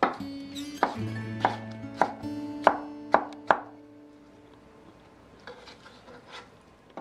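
Kitchen knife rough-chopping soft cooked zucchini on an end-grain wooden cutting board: about seven sharp knocks, roughly two a second, stopping about three and a half seconds in. Light guitar music plays underneath.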